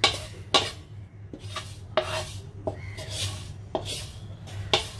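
Wooden spatula stirring sesame seeds around a dry non-stick pan, scraping in quick strokes about twice a second as the seeds are dry-toasted.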